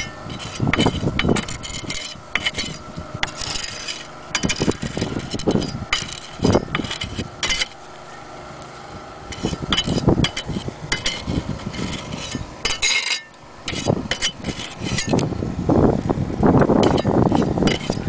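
Irregular scraping and rubbing strokes of a hand tool working Flexim flexible bedding compound against the clay hip tiles, dressing it along the joints.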